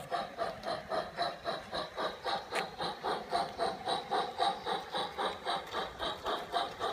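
Digital sound decoder in a G-scale model steam locomotive playing steady steam chuffs through the model's small loudspeaker, about four to five beats a second, as the engine runs along the track. A single sharp click comes about two and a half seconds in.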